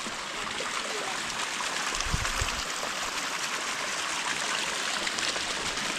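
Steady rush of running water from rain-swollen runoff after heavy rain, with a brief low thump about two seconds in.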